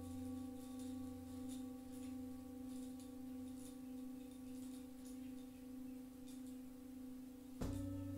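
Himalayan singing bowl ringing on with a low, steady hum whose loudness wavers slowly. Near the end the bowl is struck again and the ring swells back up.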